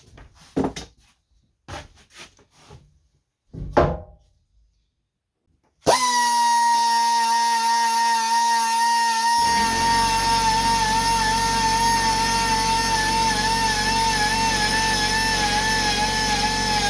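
A few scattered wooden knocks and clunks, then background music starts abruptly about six seconds in: a long held guitar-like lead note that begins to waver with vibrato, with a fuller low backing coming in a few seconds later.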